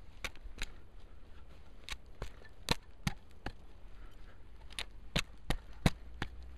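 A screw-in metal tree step being twisted by hand into a tree trunk, giving about a dozen sharp cracks and clicks at irregular intervals as its threads bite into the bark and wood, with a short pause about halfway through.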